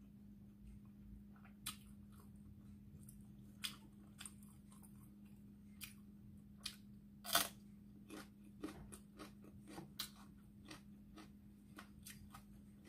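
Close chewing of a raw green chili pepper: irregular sharp crunches and mouth clicks, the loudest about seven seconds in, over a faint steady hum.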